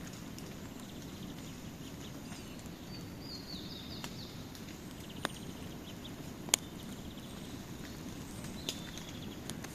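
Campfire burning with a steady low rush of flames and a few sharp pops of burning wood, the loudest about six and a half seconds in. A bird chirps briefly about three and a half seconds in.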